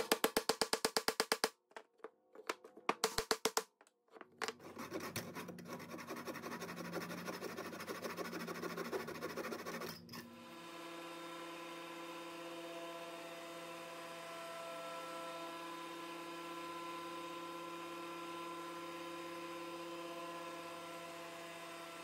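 Background music: a fast run of rhythmic clicks, then a noisier textured stretch, then from about ten seconds in a steady drone of held tones.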